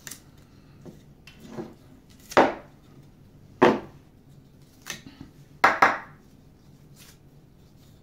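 Handling of a black plastic dome drive gear and its encoder wheel as the taped-on wheel is pulled free: a handful of short knocks and scrapes about a second apart, a few of them louder.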